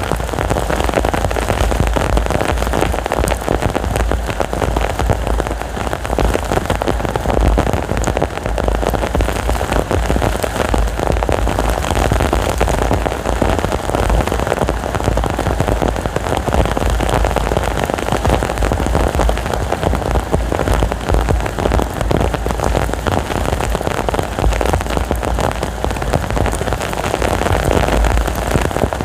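Heavy rain pouring steadily in a dense hiss, over a steady low rumble from strong wind.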